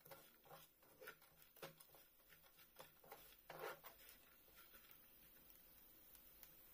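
Faint, scattered scrapes and clicks of a spatula stirring food around a frying pan, with a slightly longer scrape about three and a half seconds in.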